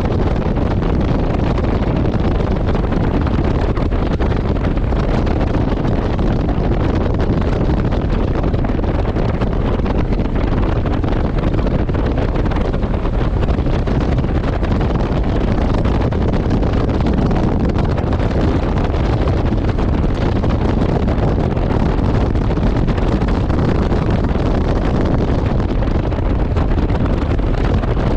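Steady wind noise rushing over the microphone of a Honda CRF1100 Africa Twin motorcycle at riding speed, with the low drone of the bike and road underneath.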